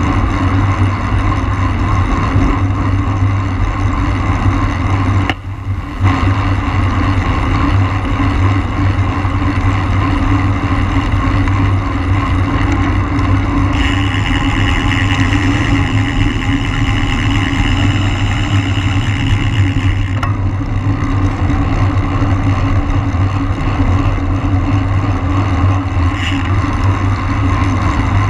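Steady wind rushing over the microphone of a camera riding along on a racing bicycle, deep and loud, with tyre and road noise under it. A higher whirring joins for about six seconds midway, and the rush dips briefly about five seconds in.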